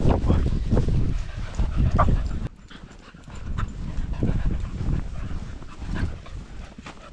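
Dogs panting and trotting close by on grass, with footsteps and wind rumbling on an action camera's microphone. The rumble drops away sharply about two and a half seconds in, leaving quieter footfalls.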